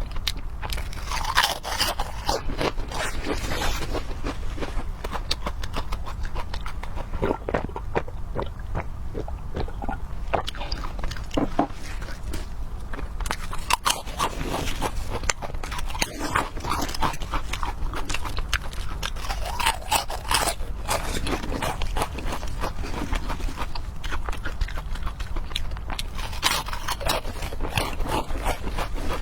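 Close-miked eating sounds: a steady run of biting and chewing, with crisp crunching.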